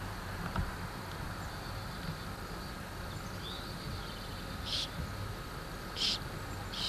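Outdoor background with a steady low rumble, a faint short rising chirp around the middle, then three brief high-pitched chirps near the end, about a second apart.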